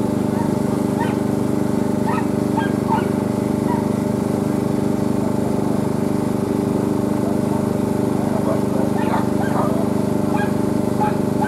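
Steady engine drone, an even hum that holds without a break, with faint short higher sounds scattered over it.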